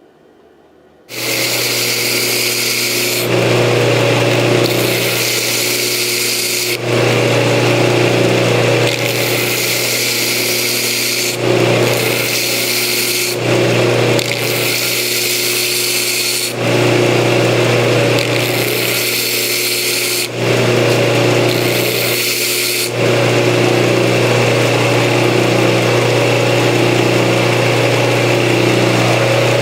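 A power tool motor running steadily, its sound changing every two to four seconds.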